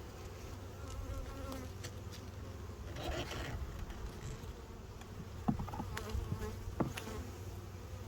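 Honeybees buzzing steadily around an opened hive, with a few sharp clicks about two-thirds through.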